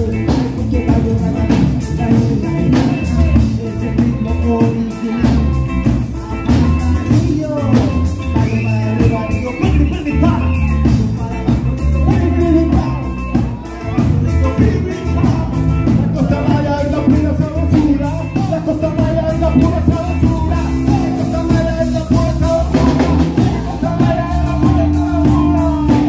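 A live band playing upbeat dance music: a drum kit keeping a steady beat under saxophone, violin and a singing voice.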